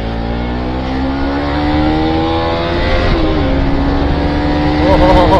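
Motorcycle engine accelerating under the rider, with wind noise on the microphone: the revs climb, drop sharply about three seconds in at a gear change, then climb again.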